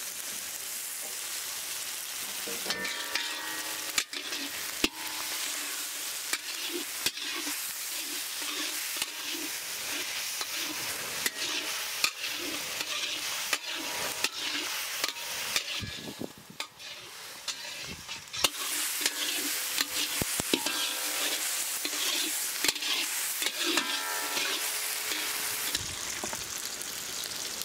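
Chopped tomatoes, onions and chillies sizzling in hot oil in a large iron kadai, with a steady hiss. A metal ladle scrapes and knocks against the pan again and again as the mix is stirred, and the sizzling briefly drops quieter a little past halfway.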